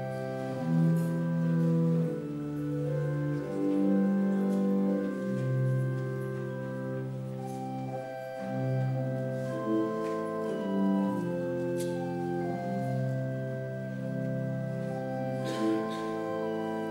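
Church organ playing slow, held chords that change every second or two, with a melody line moving above them.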